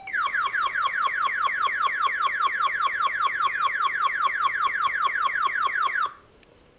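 Fire-department paging alert set off by the evening tone test: a rapid train of falling electronic chirps, about five a second. It cuts off suddenly about six seconds in, when the alert is switched off.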